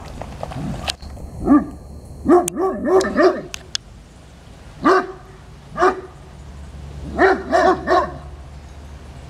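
Great Danes barking in short runs with pauses between: one bark, a quick string of four, two single barks, then three in a row near the end.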